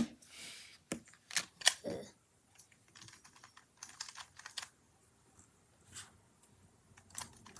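Clicking and snapping of a plastic Rubik's cube being handled and its pieces popped apart by hand. There are a few sharp clicks in the first two seconds, then fainter scattered clicks.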